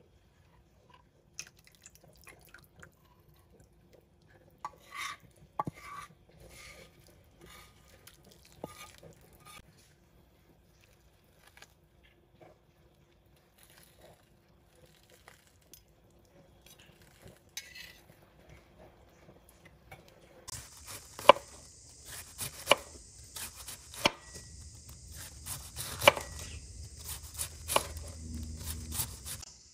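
Light, scattered clinks of a metal ladle against a steel stockpot over a faint steady hum. From about two-thirds of the way in, a knife shreds cabbage on a wooden cutting board in quick, uneven chops, over a steady high hiss.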